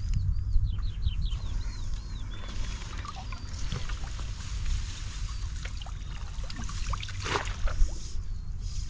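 River water splashing and sloshing as a long pole is worked in it at the bank, with one louder splash about seven seconds in. A quick run of bird chirps comes near the start, over a steady wind rumble on the microphone.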